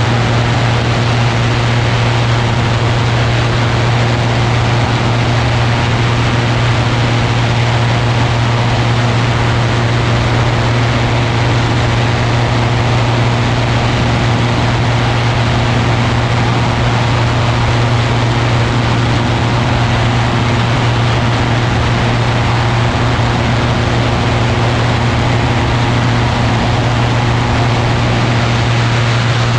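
Ultralight aircraft's engine and propeller running at a steady, unchanging drone, over a constant hiss of wind.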